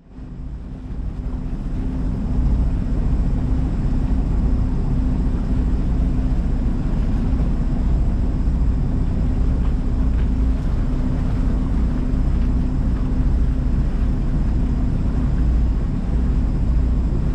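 A steady engine running with a low rumble, fading in over the first two seconds and holding even after that.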